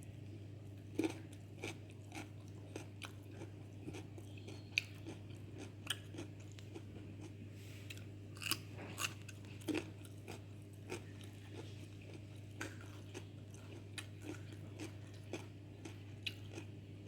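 A person biting and chewing ripe papaya, with many short, irregular mouth clicks over a steady low hum.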